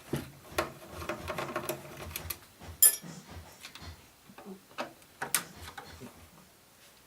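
Irregular small clicks and taps of tools and hardware while the circuit board is worked out of a Line 6 POD XT Live multi-effects unit, with two sharper clacks, about three seconds in and again about five and a half seconds in.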